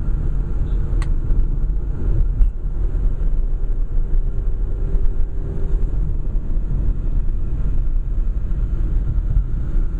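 Car driving on a paved road, heard from inside: a steady low rumble of engine and tyres, with a single faint click about a second in.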